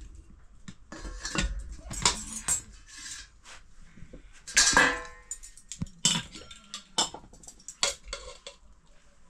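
Metal cooking pots and utensils clattering: scattered knocks and clinks, with one louder ringing clang about halfway through.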